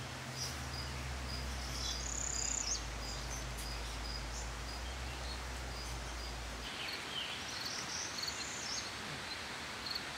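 Outdoor ambience: a steady background hiss with birds chirping now and then, short high calls dotted through it.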